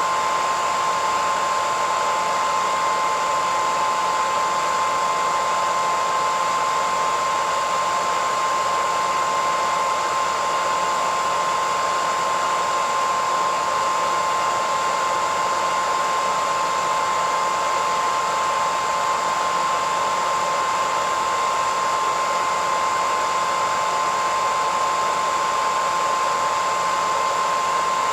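Electric hairdryer running continuously at a steady speed: an even rush of air with a steady high whine from the motor and fan.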